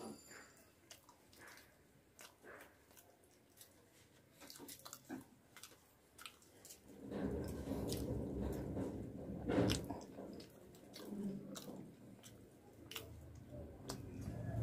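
Eating sounds: puri torn by hand and fried potato pieces picked up with the fingers, with chewing and mouth sounds. The sounds turn fuller and louder about halfway through, with one sharp click.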